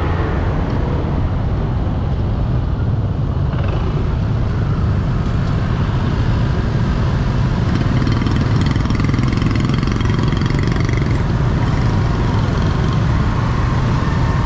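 Steady street-traffic noise of motorbikes and cars, heard from a moving motorbike among them: an even mix of engines and road rumble, strongest at the low end.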